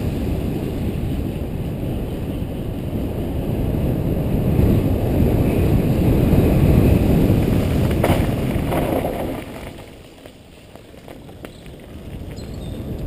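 Wind buffeting a helmet-mounted camera's microphone together with the rumble of mountain-bike tyres rolling fast over gravel singletrack, a dense low rushing noise. A sharp knock comes about eight seconds in; soon after, the noise drops away for a couple of seconds and then builds again.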